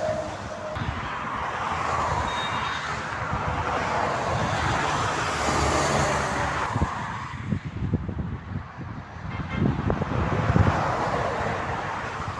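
Motorway traffic: vehicles passing at speed, their tyre noise swelling and fading over the first half. An uneven, gusty low rumble follows in the second half.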